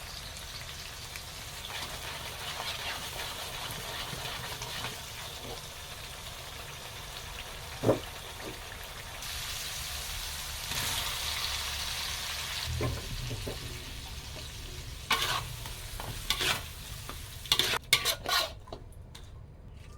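Food sizzling as it fries in a pan while being stirred, with a utensil knocking against the pan now and then, several knocks close together near the end.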